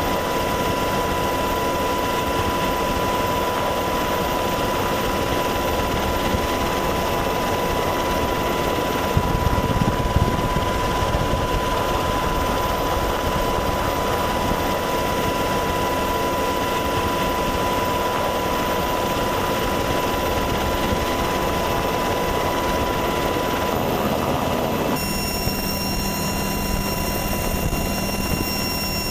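A formation of military helicopters flying by, giving a steady rotor and turbine drone with a high whine running through it. About 25 seconds in the sound changes abruptly to a line of OH-58 Kiowa scout helicopters hovering low over a runway.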